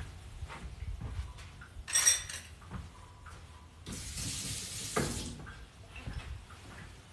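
A metal spoon clinks sharply with a short ring, then a kitchen tap runs for about a second and a half and stops, with a knock near its end; small handling noises of someone moving about the kitchen.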